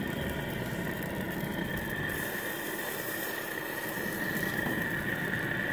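Propane gas grill burners running, a steady even hiss of the flames, with a steady high-pitched tone alongside.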